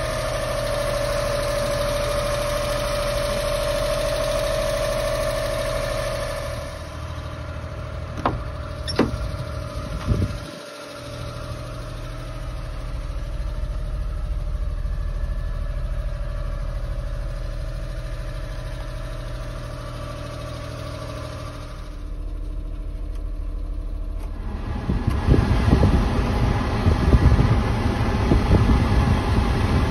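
1992 Suzuki Carry kei truck's small three-cylinder engine idling steadily. A few sharp clicks come about eight to ten seconds in, and a louder, uneven rumbling starts near the end.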